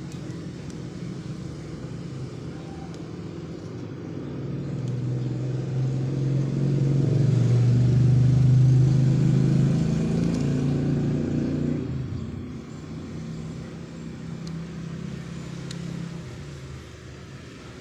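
A motor vehicle's engine passes by, growing louder over a few seconds and then fading, over a steady low hum of traffic.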